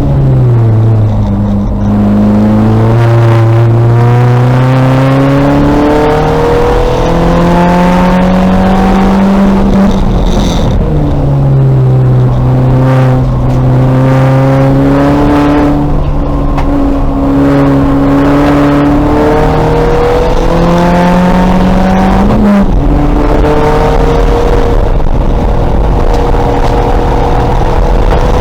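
2000 VW Golf race car's engine under hard acceleration on track. The revs climb and step down through the gears, then drop sharply twice, about a third and about three-quarters of the way through, as the car brakes and downshifts for corners.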